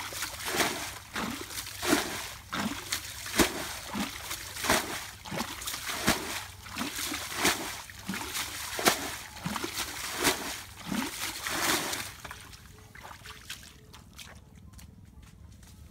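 Wet scraping and splashing as hands and a knife work the skin of a scalded, plucked chicken in an aluminium basin of water, in regular strokes about one to two a second. Much quieter over the last few seconds.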